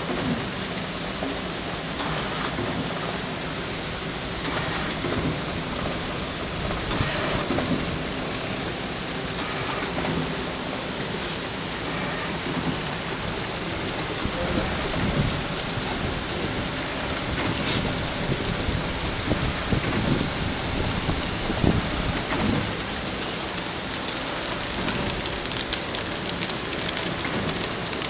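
Chinese cabbage flow pack wrapping machine running: a steady noisy hiss with faint hum and irregular clicks and knocks from the mechanism.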